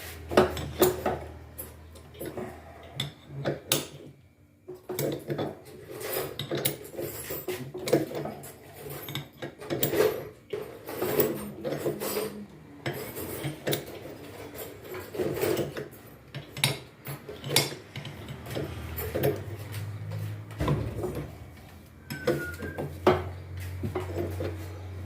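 Hand tools and metal parts clinking and knocking at the back of a Samsung front-loading washing machine being taken apart at the drum pulley, in many irregular clicks and clanks, over a steady low hum.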